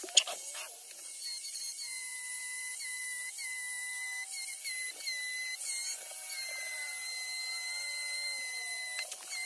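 High-speed rotary carving tool whining steadily as it cuts wood, its pitch dipping briefly about once a second as the bit bites in. A sharp click sounds just after the start.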